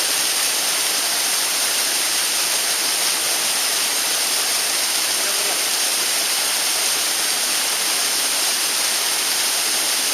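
Mountain stream rushing steadily, a constant loud hiss of flowing water with no change.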